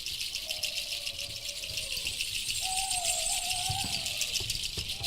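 A fast, steady, high rattling chirr, like a maraca-type rattle or massed insects, with long, slightly wavering whistled tones three times: one near the start, a stronger one through the middle, and another at the end.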